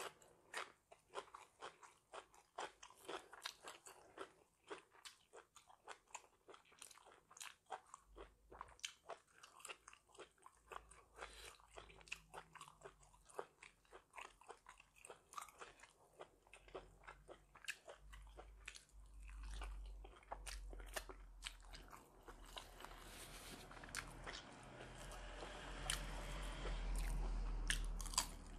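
A person chewing and crunching mouthfuls of raw leafy greens and herbs with beef, many small crisp clicks in a row. A low hum and a rushing noise build up in the last ten seconds.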